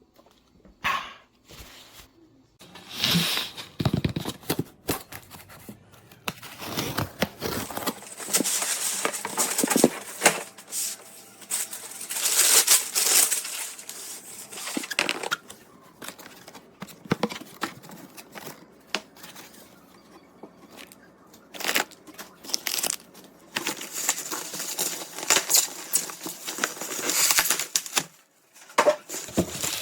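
Packaging being handled and torn: irregular rustling, crinkling and tearing with short pauses between bouts.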